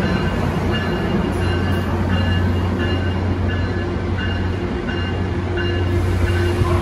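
A Caltrain bi-level commuter train pulls out, its coaches rolling past with steady wheel and rail noise over a low engine drone. Faint short high rings repeat throughout.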